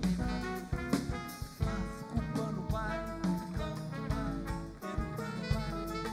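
Live jazz-inflected samba band playing an instrumental break: trumpet and saxophone lines over drum kit and acoustic bass, with quick moving melodic runs.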